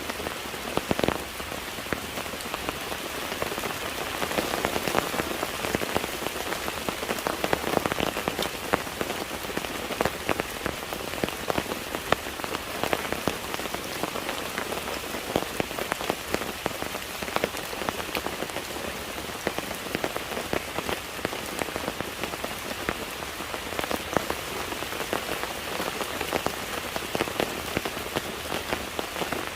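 Steady rain falling, a dense patter of many irregular drop impacts on a surface.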